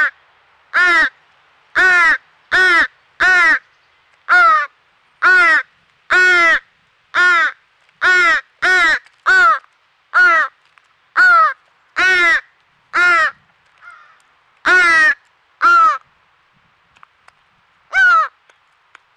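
A fledgling American crow begging: a loud, harsh, nasal caw that rises and falls in pitch, repeated about once a second, nearly twenty times, with a short pause near the end.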